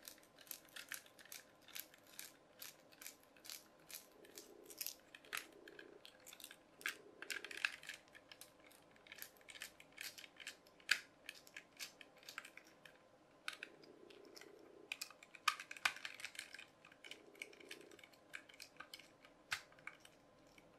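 Faint, irregular clicks and ticks of a small screwdriver undoing screws from a toy car's plastic chassis, with a few short squeaks as the screws turn in the plastic.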